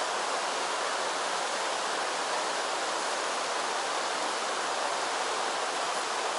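Shallow mountain stream running over rocks and gravel: a steady, even rush of water.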